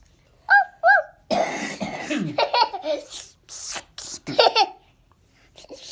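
Laughter: two short high squeals about half a second in, then a run of breathy laughs, with a last burst of laughing near the end.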